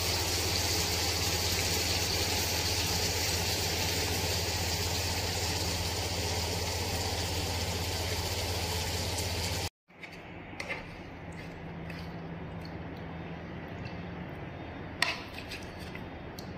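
Portable gas stove burner running under a pan of simmering stew: a steady hiss with a low hum, which cuts off abruptly about ten seconds in. After it comes a quiet room with a few light clinks of cutlery on a ceramic plate.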